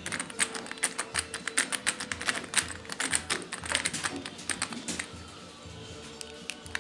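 Screwdriver driving a small screw into the metal motor-mounting bracket of an Ecofan 812 stove fan: a fast run of sharp clicks, several a second, that stops about five seconds in.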